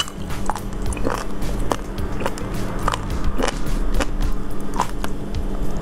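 Close-miked wet chewing and mouth clicks of someone eating slippery slices of sea cucumber, in irregular bursts a few times a second.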